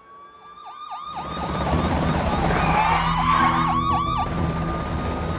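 Several police sirens sounding at once: a slow rising wail with quick repeated yelping sweeps over it. They fade in over the first two seconds over a steady noisy background.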